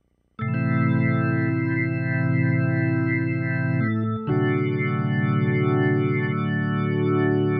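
Korg Nautilus workstation synthesizer playing an organ patch: held chords that begin about half a second in and change to a new chord a little past halfway.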